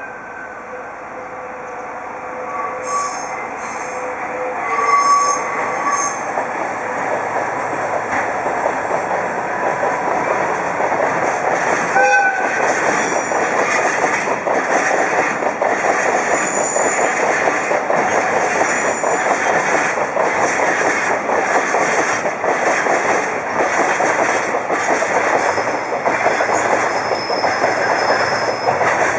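A diesel freight train passes: the locomotive's running grows steadily louder as it approaches, with a brief horn toot about twelve seconds in, then a long string of tank wagons clatters by over the rail joints in a steady rhythm, with faint wheel squeal.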